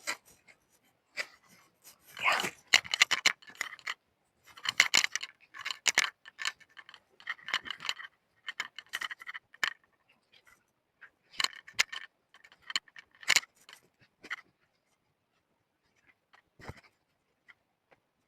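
Fabric rustling with small clicks and scrapes as a jacket is handled and rearranged on the body, in irregular short bursts that thin out near the end.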